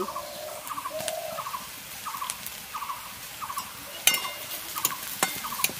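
A bird calling over and over in short, rough notes, with a few sharp clicks of a metal spatula against an iron kadai.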